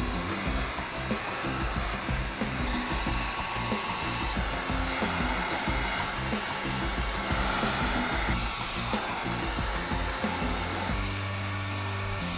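Handheld Wagner heat gun running steadily, a continuous rush of blown hot air. It is softening the adhesive along the edges of a replacement tablet screen.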